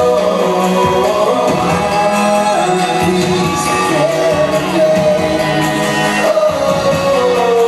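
Male pop vocal group singing over a backing track through a large hall's PA system, the voices echoing in the venue.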